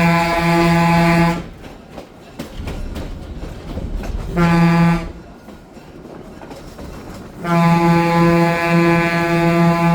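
A diesel locomotive's air horn sounding through the rumble of a moving passenger train: a long blast, a short blast about four and a half seconds in, then another long blast starting about seven and a half seconds in. The long-short-long rhythm matches the end of the standard grade-crossing signal.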